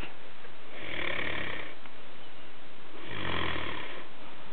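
A man snoring: two long snores about two seconds apart, each with a fluttering low rattle.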